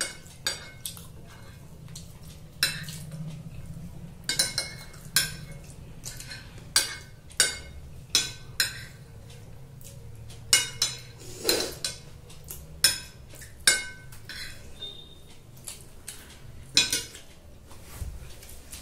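Metal spoons and forks clinking and scraping against glass plates in sharp, irregular clicks as two people eat noodles.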